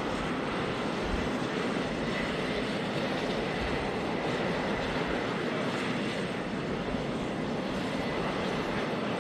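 Steady rush of a parked aircraft's engines running, with a faint high whine held throughout.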